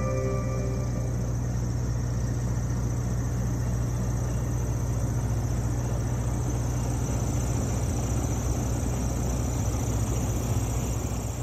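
Boat motor running steadily with a low hum, heard from on board.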